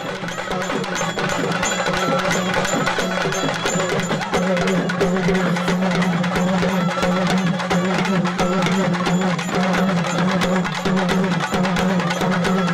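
Fast, continuous drumming with metallic ringing over a steady low drone: loud percussion music at a temple festival dance.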